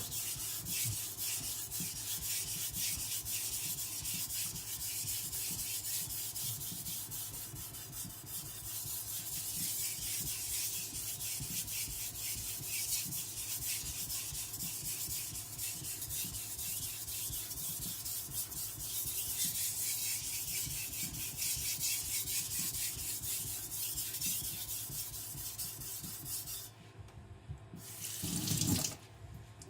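Carbon-steel Chinese cleaver being ground on a wet 1000-grit whetstone: a steady rasping scrape of rapid back-and-forth strokes as the edge bevel is laid lower. The strokes stop a few seconds before the end, and a brief, louder rush of noise follows.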